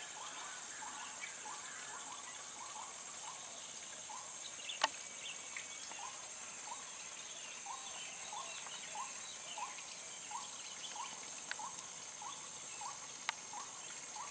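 Steady high-pitched drone of insects, with a short, slightly rising animal call repeated about twice a second throughout. A few sharp clicks sound, the clearest about five seconds in.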